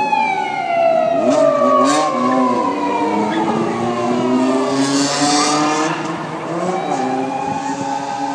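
A police car siren wailing, its pitch sliding down over the first few seconds and holding steadier later on, mixed with motorcycle engines being revved up and down in short swells.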